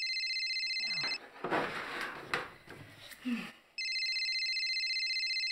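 Telephone ringing with an electronic trill, in two spells: the ring stops about a second in and starts again at about four seconds. In the pause there is rustling and a light clink.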